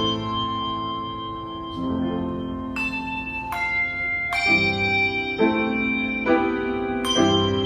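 A set of bells being played, a new struck note or chord about every second, each ringing on and overlapping the next.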